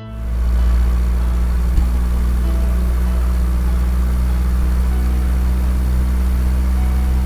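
Bulldozer engine idling steadily with a deep, even hum, as a cartoon sound effect.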